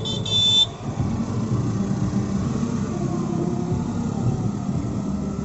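Car engine and road noise heard from inside a taxi's cabin in slow city traffic, with a few short, high vehicle-horn beeps in the first second.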